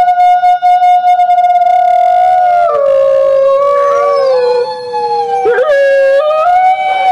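A grey wolf howling: one long, loud howl held on a steady pitch, with a second, lower howling tone running alongside it from about three seconds in until about six seconds, where the pitch briefly breaks and dips before settling back.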